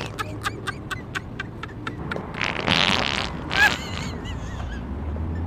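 A prank fart sound: a noisy blast about two and a half seconds in, after a quick string of clicks and followed by a shorter burst with a few squeaky chirps.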